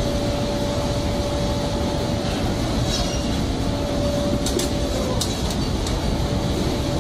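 Fish-processing line machinery on a factory ship running steadily, a loud constant mechanical noise with a steady hum held through it. A few sharp clicks come about two-thirds of the way in.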